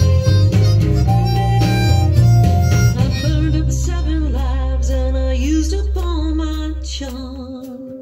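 Harmonica played close into a microphone over a backing with a bass line. About three seconds in, the backing settles on one long low note while the harmonica plays wavering, bending notes, and the music fades away near the end.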